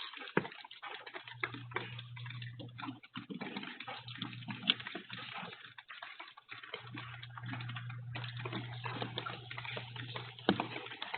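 Heavy rain falling, a steady patter with many sharp drip hits, under a low hum that stops and starts several times.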